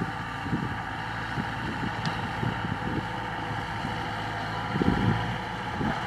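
Kubota DC-105X rice combine harvester running steadily while cutting rice, a steady engine and machinery hum. Wind buffets the microphone in low gusts, strongest about five seconds in.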